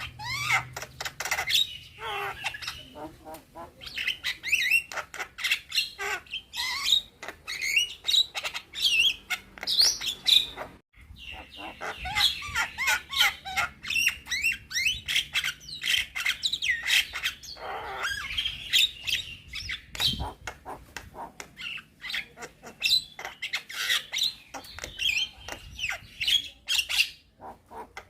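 Young Javan myna singing a rapid, near-continuous chatter of whistles, chirps, clicks and harsh notes, its song packed with mimicked calls of other birds. It breaks off briefly about eleven seconds in, then carries on.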